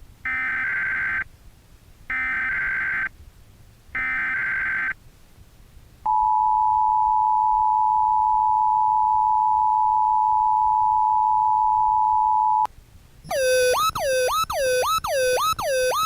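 Emergency Alert System alert tones: three one-second bursts of SAME header data tones with short gaps, then the steady two-tone attention signal held for about six and a half seconds. Near the end comes a fast run of falling electronic whoops, about two or three a second.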